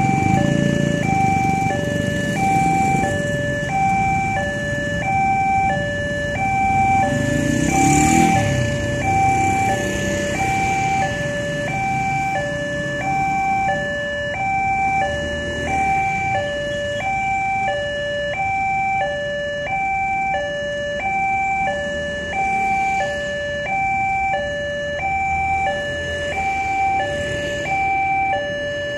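Indonesian railway level-crossing alarm sounding, an electronic signal alternating steadily between a lower and a higher tone about every half second, warning of an approaching train. A motorcycle passes close about eight seconds in, over light road traffic.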